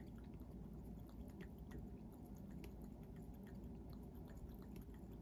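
Cat lapping water from a cup: faint, quick wet laps, a few each second, over a steady low hum.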